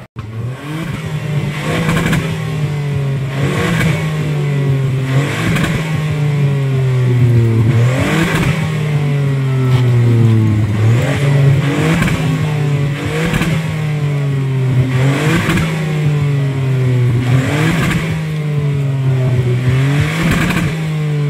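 Tuned Ford hot hatch's exhaust revved again and again, each throttle blip rising sharply and falling back more slowly, about one every two seconds.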